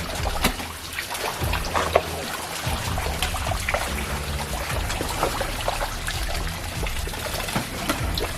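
Water trickling and splashing, with many small irregular splashes over a steady low rumble.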